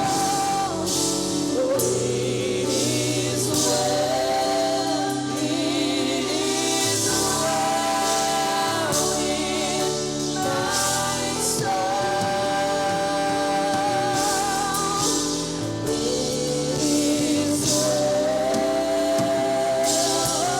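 Gospel song sung by a group of voices over instrumental accompaniment, with long held notes that waver in vibrato.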